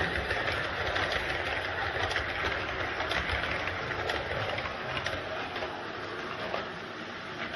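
Model electric train running along layout track, a steady mechanical clatter of small wheels over the rails and rail joints with a motor whir, getting a little quieter near the end.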